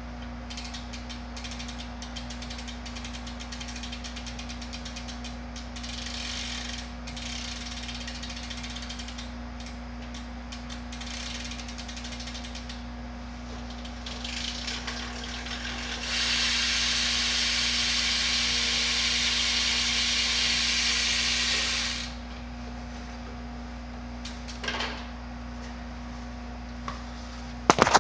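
Profile rear hub of a BMX bike, its freewheel pawls ratcheting as the wheel turns: a rapid clicking that swells about halfway into a louder, fast continuous buzz for some six seconds, then falls back to a few stray clicks.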